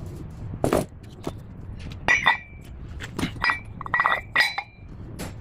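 Metal parts or tools clinking and knocking together, about seven sharp strikes spread over a few seconds. Several ring briefly at a high pitch.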